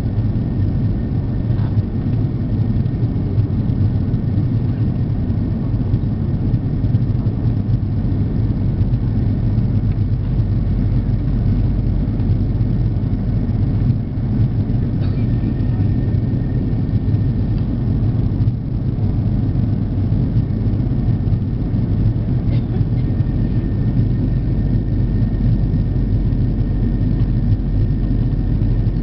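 Steady low rumble of jet airliner cabin noise heard from a window seat over the wing of an Airbus A340-300 in flight: its CFM56 engines and the rushing airflow, with a faint steady high whine above it.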